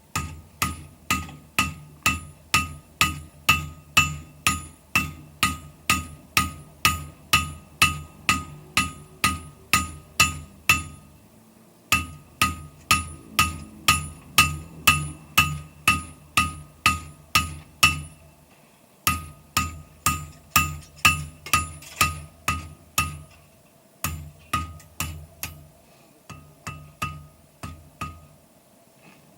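Blacksmith's hammer striking metal on an anvil in a steady rhythm of about two to three blows a second, each blow ringing briefly. The hammering comes in long runs with short pauses between them.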